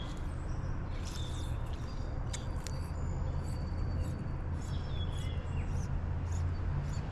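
Birds chirping in short high calls over the steady rush of a flowing creek.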